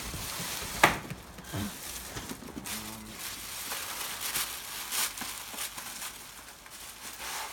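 Plastic bag crinkling and foam packaging rubbing as a packed 3D printer is lifted out of its box, with one sharp knock a little under a second in.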